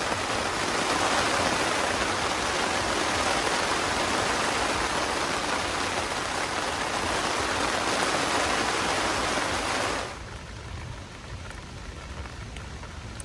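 Heavy rain falling in a steady hiss. About ten seconds in it drops suddenly to a much quieter rain patter with a low rumble underneath.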